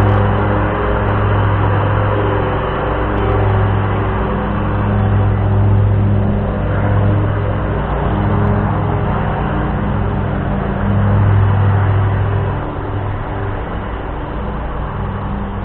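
A steady mechanical hum at one constant low pitch, swelling and easing slightly in loudness and fading a little near the end.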